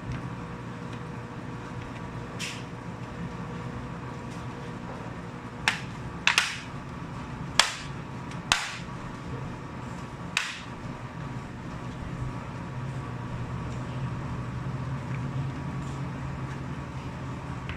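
Laptop parts being handled, giving about six sharp clicks and taps in the first ten seconds over a steady background hum.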